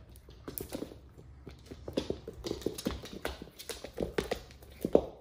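Quick, irregular taps and light thumps, several a second, of cats' paws scampering and batting about during play.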